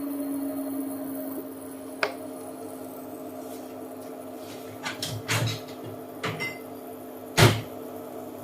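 A few sharp clacks and knocks of cookware on a kitchen stove, the loudest near the end, over a low steady hum.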